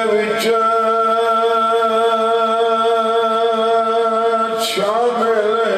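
A man's voice chanting unaccompanied into a microphone in the melodic style of majlis recitation: one long held note with a slight waver, then a short break and a new phrase sliding upward near the end.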